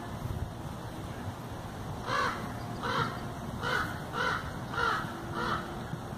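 A crow cawing six times in a steady series, starting about two seconds in, about one caw every two-thirds of a second.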